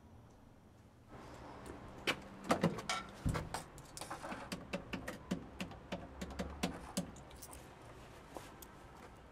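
Public payphone being used: a deep clunk as the handset is taken, then a quick run of sharp clicks as the number is keyed in, over low street background.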